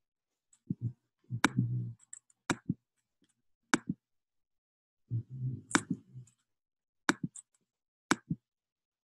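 About ten sharp clicks of a computer pointing device, several coming in quick pairs, at irregular intervals. A dull low rumble sits under the clicks at about one and a half seconds and again at about five and a half seconds.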